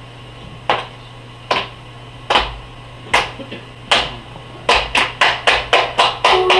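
A series of sharp percussive hits, like claps or knocks: five evenly spaced about a second apart, then quickening to about four a second.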